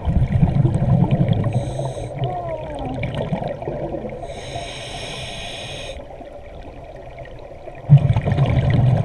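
Scuba diver breathing through a regulator underwater. Exhaled bubbles rumble at the start and again near the end, with a steady hiss of air through the regulator on the inhale in the middle.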